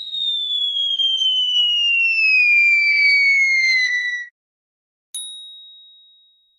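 A long whistle gliding steadily down in pitch, the cartoon falling sound effect, for about four seconds before cutting off sharply. A second later a single high bell ding rings and fades out.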